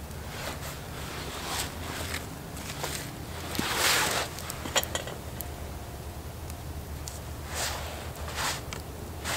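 Shuffling footsteps and rustling in dry fallen leaves and heavy clothing as a man moves and crouches, in several short bursts, the loudest about four seconds in, with one sharp click about a second later.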